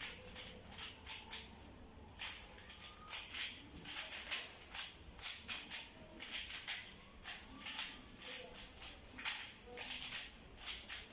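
A plastic Rubik's cube's layers being turned quickly during a timed solve: irregular runs of clicks and clacks, with a short pause about two seconds in.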